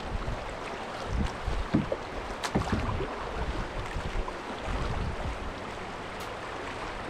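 Rushing water of shallow river rapids around a canoe, with scattered knocks and splashes from paddle strokes, loudest about two to three seconds in.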